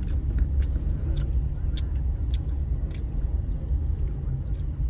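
Car cabin noise while driving: a steady low engine and road rumble, with a light click repeating a little under twice a second.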